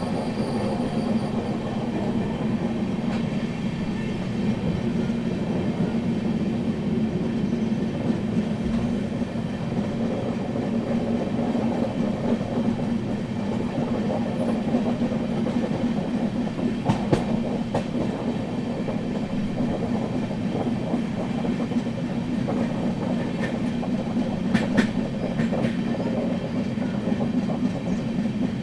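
Indian Railways train running on the rails: a steady rumble with wheels clicking over the rail joints, and a few sharper clacks in the second half.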